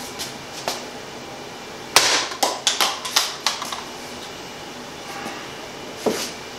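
An 8-inch chef's knife slashes through an empty cardboard paper towel tube about two seconds in with one sharp hit. The cut pieces clatter and bounce on the wooden workbench for about a second and a half, and there is one more knock near the end.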